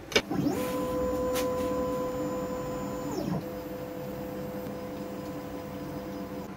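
Desktop OpenBuilds CNC router's stepper motors whining as the machine moves: after a sharp click, the whine rises over a quarter second, holds steady for a few seconds, and falls away. A fainter steady hum carries on to the end.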